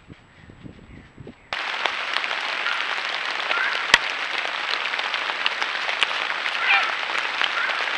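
Faint rustling of a roe deer moving through dry leaf litter, then, about one and a half seconds in, a loud steady patter of rain on leaves starts abruptly, with a few short high chirps over it.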